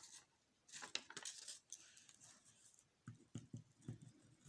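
Faint handling noises: a few soft taps and rustles, with a cluster of small thumps about three seconds in.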